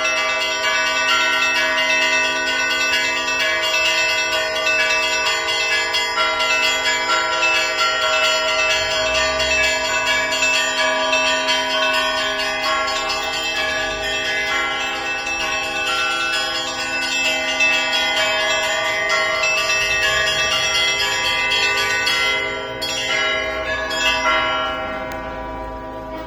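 Russian Orthodox festal church bell ringing: many bells sounding together, quick repeated strokes on the higher bells over the long-ringing tones of the larger ones. About 22 seconds in the peal thins to a few last strokes and dies away.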